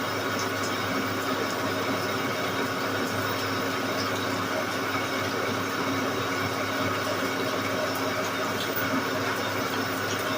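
Large engine lathe running steadily, taking a cut on a big metal ring: an even motor and gearbox hum with faint cutting noise.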